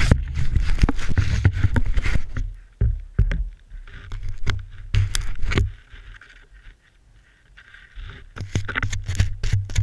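Rumble and scraping of a ski moving through snow, picked up by a GoPro mounted on the ski with snow packed against its housing, with frequent sharp knocks. It dies away almost to quiet about two-thirds of the way in, then starts up again.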